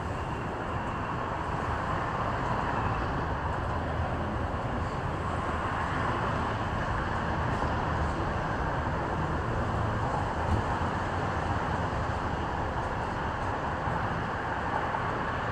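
Steady outdoor traffic noise, a continuous even rumble with no single vehicle standing out.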